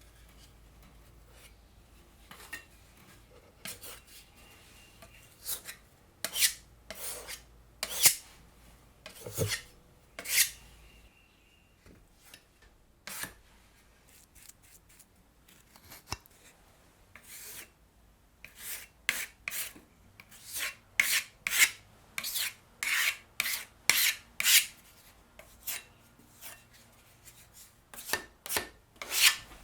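Repeated short rasping strokes of a hand tool rubbing on pine trim. The strokes come one at a time at first, then in a quicker run of about two a second in the second half.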